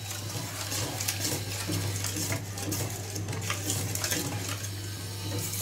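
Steel spoon stirring and scraping a thick masala around a stainless steel kadai, in irregular metallic scrapes over a steady low hum.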